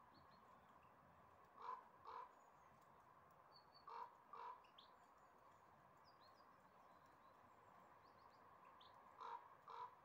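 Crow cawing, faintly: three double caws, about a second and a half in, about four seconds in, and near the end. Faint high chirps of small birds come and go throughout.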